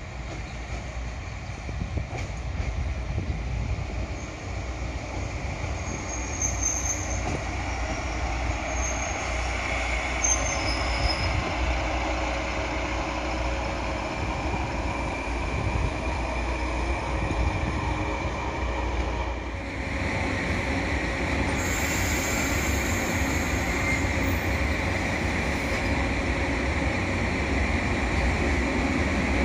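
A train moving through a station, its running rumble on the rails growing gradually louder, with short high-pitched wheel squeals.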